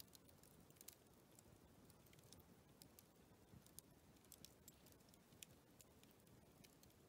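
Near silence, with faint, irregular small clicks and ticks over a low background hiss.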